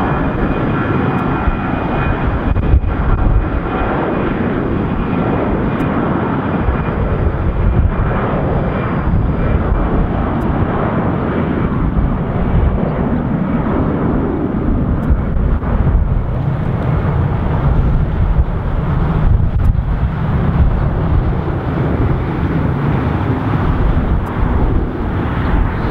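Airbus A320-family twinjet's engines at takeoff power during its takeoff roll: a loud, steady jet roar with a faint whine in the first few seconds, its tone slowly shifting as the aircraft moves past.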